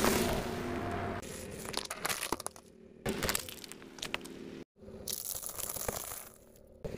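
A car tyre rolling over and crushing small objects one after another, among them a small carton and pine cones. A loud burst comes at the start as the carton is flattened, then crackling and crunching, cut into short separate takes.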